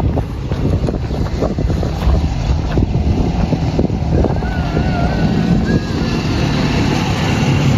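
Quad bike (ATV) engines running loud and steady as a group of quads passes, with wind on the microphone. A muezzin's call to prayer wavers faintly in the background about halfway through.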